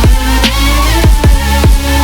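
Bass-boosted electro house music with no vocals: a heavy, sustained sub-bass under punchy kick drums whose pitch drops, with a synth line on top.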